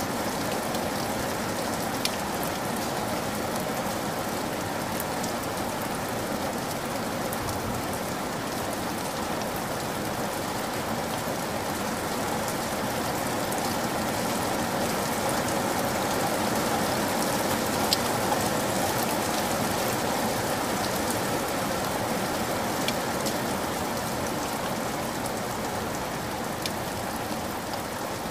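Shallow stream flowing over gravel: a steady trickling and babbling of water, with a few small clicks and splashes.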